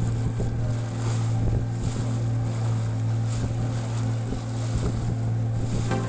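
A boat's motor running at a steady pitch, with water rushing and splashing along the hull and wind buffeting the microphone.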